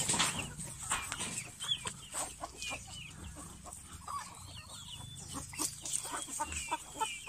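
A flock of free-range chickens clucking, many short high calls scattered throughout, with light scattered clicks.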